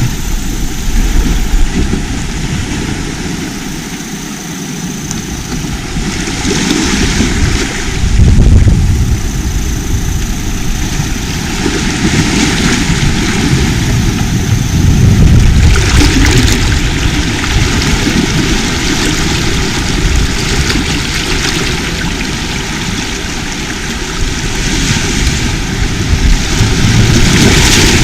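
Sea waves washing in and breaking on the shore, a continuous rushing noise that swells and eases several times, with a heavy low rumble.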